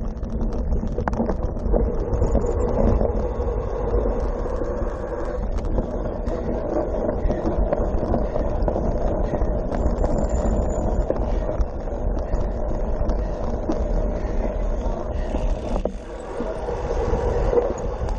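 Wind buffeting the microphone of a camera on a cyclocross bike at racing speed, over a steady rumble and scattered small rattles as the bike rides over rough grass.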